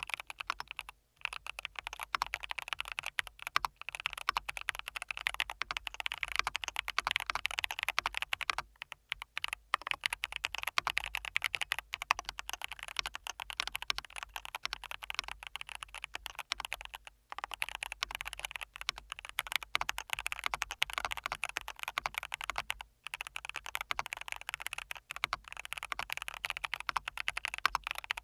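Fast typing on a Corsair Vanguard 96 mechanical keyboard: a dense, irregular stream of keystroke clicks with several brief pauses.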